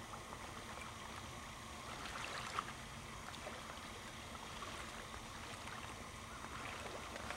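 Faint, steady water lapping and trickling, with one soft knock about two and a half seconds in.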